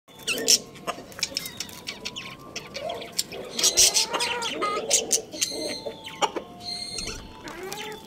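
Budgerigars chirping and warbling, a busy, overlapping run of short sharp high chirps with softer chattering calls between them.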